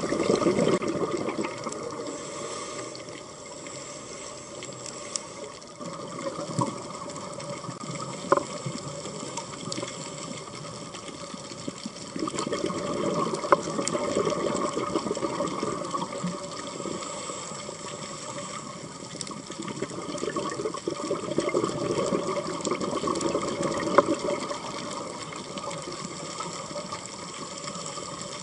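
Underwater sound picked up by a camera in its housing: a steady wash of water noise that swells into louder bubbling now and then, typical of a scuba diver's exhaled bubbles, with a few sharp clicks.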